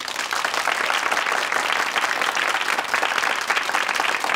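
Audience applauding: dense clapping from many hands that breaks in suddenly and keeps going steadily.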